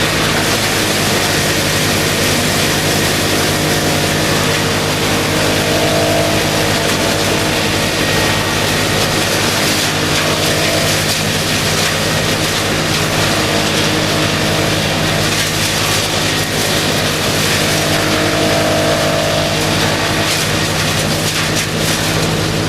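Wood chipper running steadily: an even engine drone under a dense, rushing noise, with a faint higher whine rising twice, about six and eighteen seconds in.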